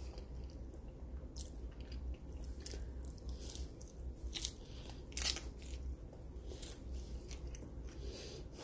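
A person biting into and chewing crunchy food close to the microphone, with a series of sharp crunches, the loudest about five seconds in.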